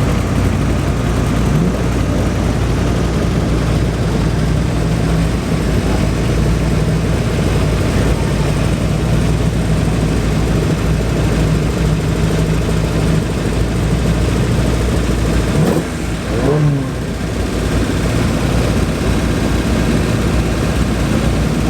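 Car engine running steadily, with a short rev rising in pitch about three-quarters of the way in.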